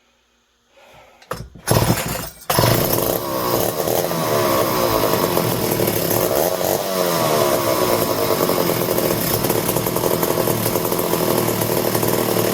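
Two-stroke chainsaw engine coming in about two and a half seconds in, then running loudly and revving up and down. It is untuned, and the owner suspects a spark miss at idle.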